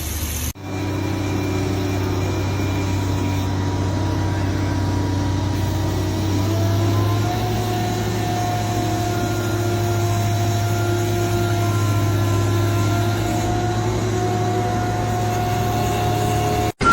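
A machine's engine running steadily, its pitch rising slightly about seven seconds in.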